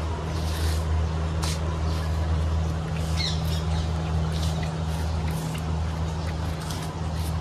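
A steady low hum runs throughout, with scattered short high chirps and a few light clicks over it.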